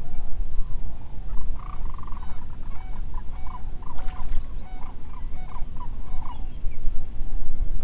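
A bird calling from the marsh in a run of short repeated notes, quickening to about three a second before stopping after about six and a half seconds, over a steady low rumble.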